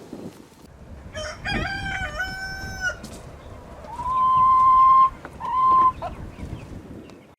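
Rooster crowing: a stepped call about a second in, then a louder, higher, long held call around four seconds in, followed by a short one.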